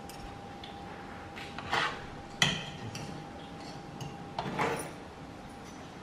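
Metal spoon and fork clinking and scraping against a ceramic plate of rice, in a few separate clatters, the sharpest a ringing clink about two and a half seconds in.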